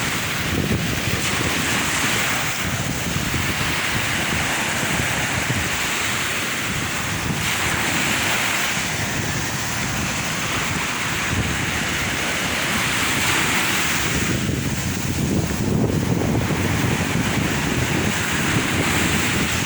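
Sea waves breaking and washing ashore, swelling and falling back every few seconds, with wind rumbling on the microphone.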